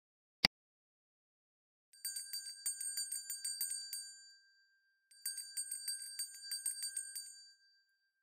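A single mouse click, then a small bell rung rapidly in two bursts of about two and a half seconds each, several strikes a second: the subscribe-button click and notification-bell sound effect of a YouTube end card.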